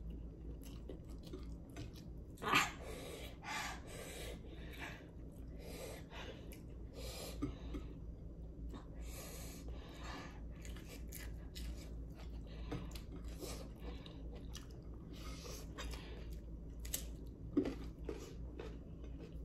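A person chewing food close to the microphone, with irregular crunching and wet mouth sounds and a couple of sharper, louder sounds, one about two and a half seconds in and one near the end.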